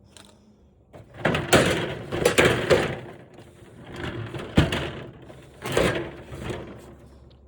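Rustling and clattering of loose plastic TV parts being handled, in three bursts, with a sharp knock a little past halfway and another soon after.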